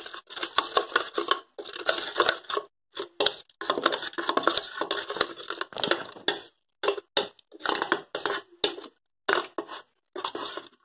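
A spoon stirring a thick gram-flour and rice-flour batter in a stainless steel bowl, scraping and slapping against the metal in quick irregular strokes, with brief pauses between runs of strokes. The batter is being beaten smooth so that no lumps are left.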